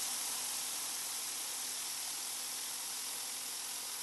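Ryobi 1500 PSI battery-powered pressure washer with its turbo nozzle on the regular, non-boost setting, spraying concrete: a steady hiss of the water jet striking the surface, with a faint low hum beneath.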